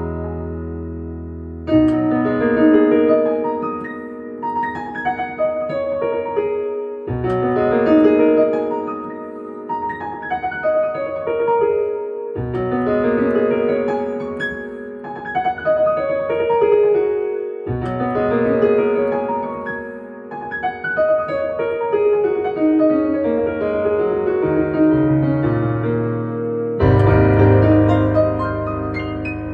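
Nord Stage keyboard playing a piano sound: flowing right-hand figures over a new low bass note struck about every five seconds, with a fuller, louder chord near the end.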